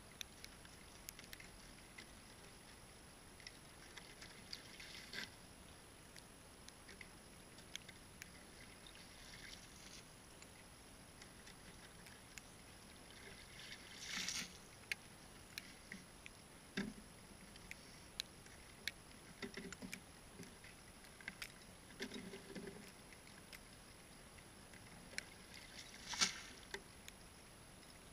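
Snow shovel scooping icy slush and water out of a hole in lake ice and flinging it out, faint and intermittent, with small scattered scrapes and knocks. A splash about halfway through and a sharper splash or scrape near the end stand out.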